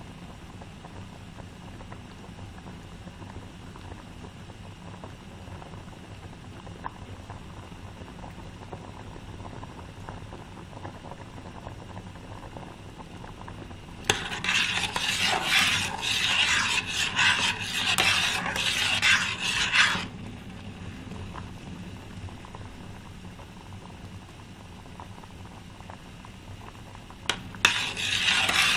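Food being stirred in a pot, the utensil scraping and rasping against the pot in a bout of about six seconds starting halfway through, and again starting near the end. Before and between the bouts there is only a low, steady background.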